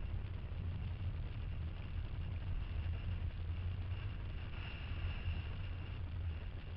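Car driving at steady speed, heard from inside the cabin: a continuous low engine and road rumble, with a faint high tone that swells briefly a little past the middle.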